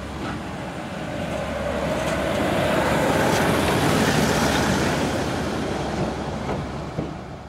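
A Fablok 401Da (SM42) diesel-electric locomotive running light past close by. Its diesel engine grows louder to a peak a few seconds in, then fades as it moves away. There is one sharp click near the end.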